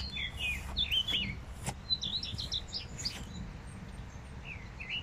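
Songbirds singing in blossoming trees: a busy run of quick chirps and short whistled, warbling phrases, over a low rumble on the microphone. The sound cuts off suddenly at the end.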